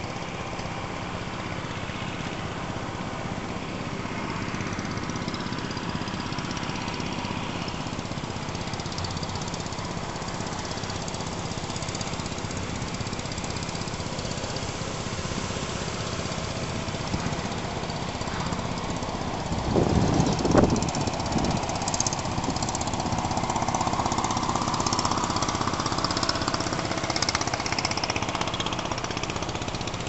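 A steady low engine drone, like a vehicle idling, with loud wind buffeting on the microphone about two-thirds through. Faint high chatter from the large flock of birds overhead comes through in the later part.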